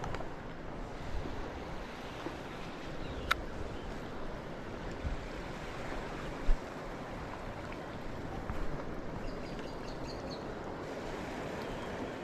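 Steady wash of water at the shoreline with some wind. A sharp click about three seconds in and a short dull thump about six and a half seconds in.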